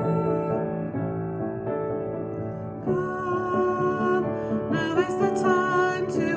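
Worship song playing with piano accompaniment; a fuller, sung passage comes in about three seconds in.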